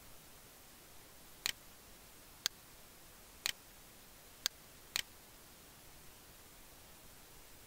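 Computer mouse clicking: five sharp single clicks about a second apart, the last two closer together.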